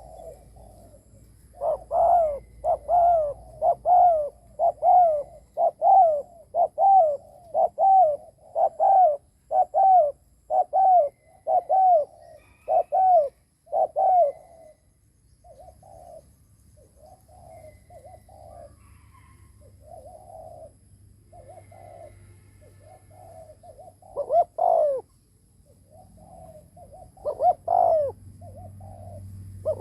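Spotted dove cooing: a fast run of about a dozen loud coos, roughly one a second, then a stretch of softer notes broken by a few more loud coos near the end. This is a decoy dove's 'gù' display cooing, used to provoke wild doves.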